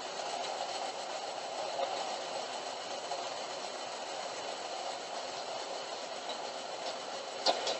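Craftsman band saw running freely without cutting, a steady even hum with the blade turning smoothly on its freshly reseated tires. A couple of sharp clicks near the end.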